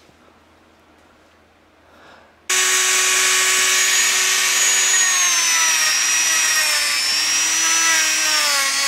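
Dremel rotary tool with a wire brush polishing a cast aluminium skull: the motor starts suddenly about two and a half seconds in with a high whine, runs steadily, dips a little in pitch in the second half, and stops near the end.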